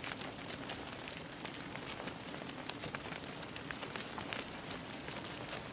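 Hooves of a large flock of sheep and goats walking over dry, stony ground: a steady mass of small clicks and scuffs with no clear bleats.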